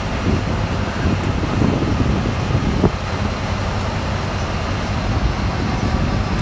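BR Class 14 diesel-hydraulic locomotive passing slowly at close range, its Paxman Ventura engine running with a steady low rumble over wheel-on-rail noise. A single sharp click comes about three seconds in.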